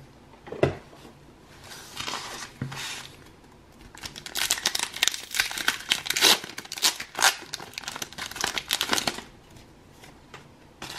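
Foil Pokémon booster pack wrapper being torn open by hand and crinkled. A few brief crinkles come first, then a long run of crackling tearing from about four to nine seconds in.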